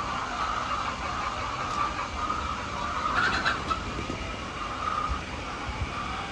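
A flock of hens in a poultry house calling together: many overlapping wavering calls over a steady background hum.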